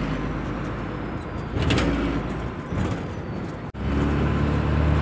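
Bus engine running, heard from inside the cabin over city traffic, with a brief louder noise about two seconds in. The sound breaks off sharply just before four seconds and picks up again with a louder, steadier engine hum.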